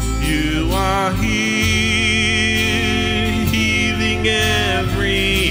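Live worship song: a woman and a man singing together, with acoustic and electric guitar accompaniment.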